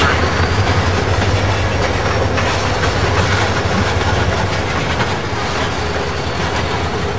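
DCC sound decoder in an HO-scale SD40-2 model diesel locomotive playing a diesel engine rumble through its small speaker as the model rolls slowly along the track. The low hum is strongest in the first few seconds and eases off somewhat toward the end.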